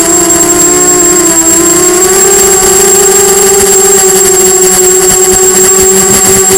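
Diatone Blade 250 quadcopter's brushless motors and propellers buzzing loudly in flight, heard from the onboard camera. The pitch wavers and steps up slightly about a second or two in, then holds steady, with a constant high whine over it.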